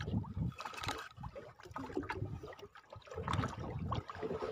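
Sea water lapping and slapping against the hull of a small boat, with irregular low bumps on the microphone.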